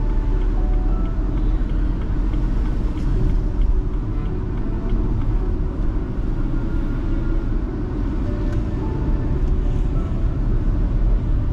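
Car driving: a steady, loud low rumble of engine and road noise.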